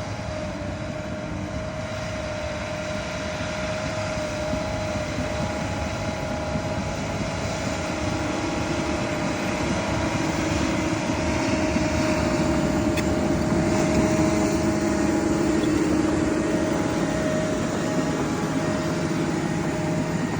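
Bulldozer's diesel engine running steadily under load with a constant whine over it, growing gradually louder.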